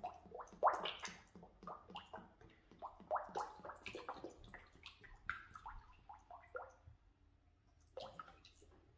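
Motor oil pouring from a plastic jug into an engine with its intake manifold off, the jug glugging and gurgling unevenly as air bubbles back in while the oil splashes into the open valley.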